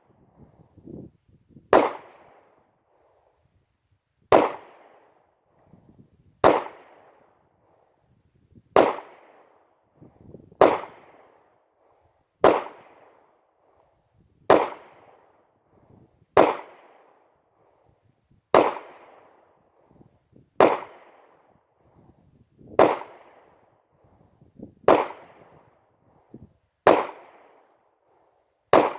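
Ruger SR9C 9mm compact pistol firing slow, evenly spaced single shots, about one every two seconds, fourteen in all, each shot followed by a short ringing echo.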